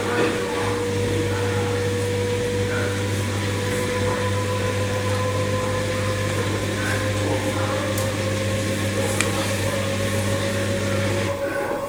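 LG washing machine running: a steady mechanical hum with a clear tone that slowly rises in pitch. The low hum cuts off about eleven seconds in.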